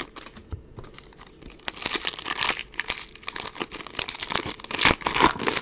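Trading card packs being torn open and handled: wrappers tearing and crinkling, with the cards rustling and clicking against each other. Fainter for about the first second and a half, then louder and busier.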